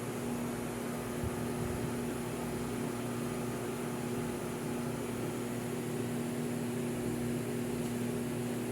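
Rewound electric motor running under test, giving a steady hum with a continuous hiss.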